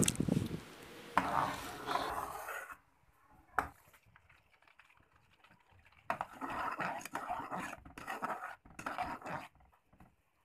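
A spoon stirring and scraping in a metal pot of butter simmering down into ghee, with the milk solids separating out. Two spells of stirring, with a quiet gap and a single click between them.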